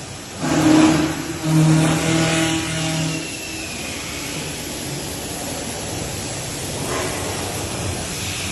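CNC wood pattern milling machine with a 5.5 kW spindle, running while it cuts: a steady machine hum that breaks off and resumes during the first three seconds, then an even rushing noise that swells briefly near the end.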